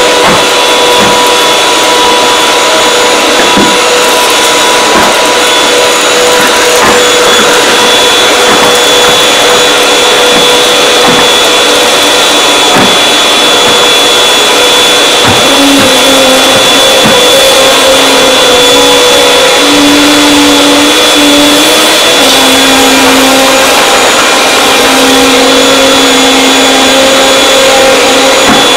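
Canister vacuum cleaner running steadily with a high motor whine as its floor head is pushed over carpet tiles. In the second half a lower hum comes and goes.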